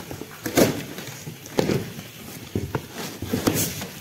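Large cardboard shipping box being opened by hand: packing tape pulled away and the cardboard flaps pushed open, giving a series of irregular rustles, scrapes and short tearing sounds.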